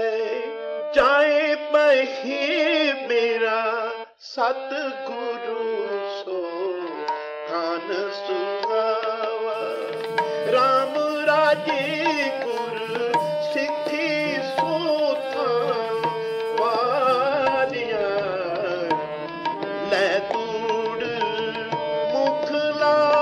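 Sikh kirtan: a devotional hymn sung to held instrumental notes, with percussion coming in about ten seconds in.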